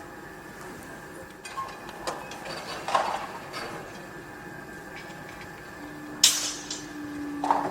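Construction-site noise: scattered metallic clanks and knocks over a steady machine hum. A low steady tone sounds for about two seconds near the end, and the loudest, sharpest clank comes about six seconds in.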